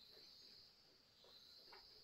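Near silence with a faint, steady, high insect drone in the background and a couple of faint light ticks.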